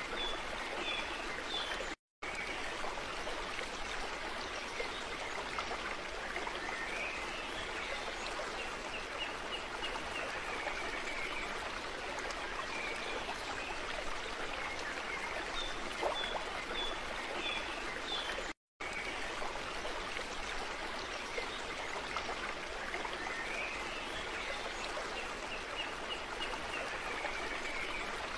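Steady flowing water like a running stream, with faint high-pitched calls on top, as a looped background track. It repeats about every sixteen seconds, with a brief cut to silence at each loop point.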